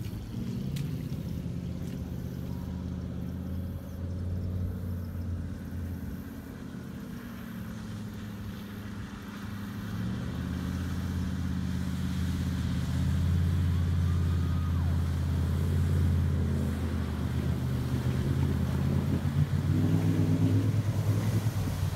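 Full-size pickup truck's engine running as it drives through knee-deep water, its pitch dipping and then climbing again with the throttle and getting louder as the truck comes closer. It revs up near the end, with the wash of water pushed along by the truck.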